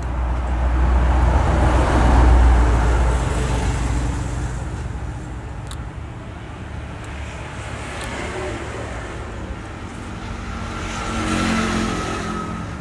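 A road vehicle passing, its low rumble swelling about two seconds in and fading out, with a second vehicle swelling and fading near the end.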